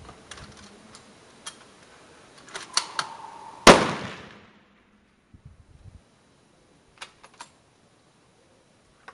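A single bolt-action military service rifle shot about a third of the way in, sharp and loud with a short echoing tail, among a few light clicks before and after.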